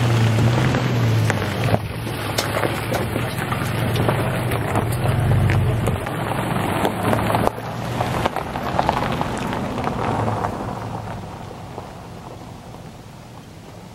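Ford Ranger pickup's engine pulling in low gear up a steep rocky slope, with a steady low hum under the crackle of tyres crunching over loose rock. There is an abrupt change about halfway through, and the sound fades near the end.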